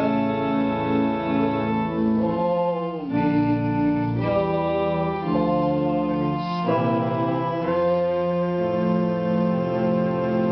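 Electronic keyboard on an organ-like voice playing a slow hymn: long held melody notes over chords that change in the low register.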